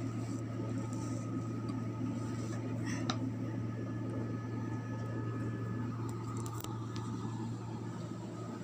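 A steady low hum with a low background rumble, and a couple of faint clicks about three seconds and six and a half seconds in.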